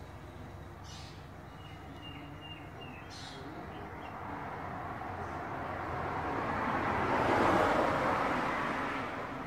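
A vehicle passing on a road beyond the garden, its noise swelling over several seconds, loudest about three-quarters of the way through, then fading. Early on there are two short high chirps and a brief thin whistle.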